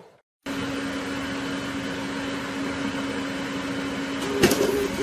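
A steady low mechanical hum with one low steady tone, starting about half a second in, like an appliance or fan running in a room. About four and a half seconds in there is a single sharp click.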